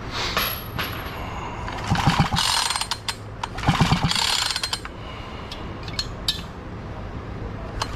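Husqvarna 445 chainsaw's recoil starter pulled twice, the rope rasping out and the starter ratcheting as the two-stroke engine turns over without running, its spark plug out and held against the engine to check for spark.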